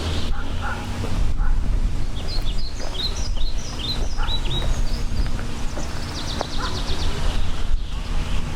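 Birds chirping: a run of short, downward-sliding chirps, then a quick trill about six seconds in, over a steady low rumble.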